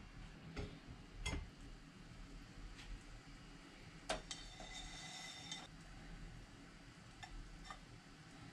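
Light metallic clinks and taps as a stainless wire rack is set over a smoking pot and quail eggs are placed on it; the sharpest clink, about four seconds in, rings on briefly, and small ticks follow near the end.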